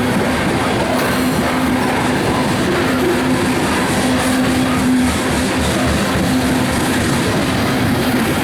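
BNSF coal train rolling past at track side: steady wheel-on-rail noise, with a low hum that comes and goes.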